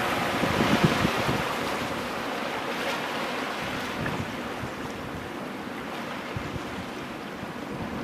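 Ocean waves breaking and washing over rocks: a steady rushing surf that swells in the first second or so, then eases. Wind buffets the microphone with low gusts in the first second or two.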